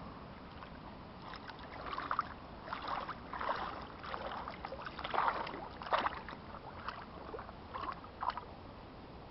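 Water splashing as a dog wades through shallow water, a run of irregular splashes and sloshes from its legs starting about a second and a half in and dying away shortly before the end.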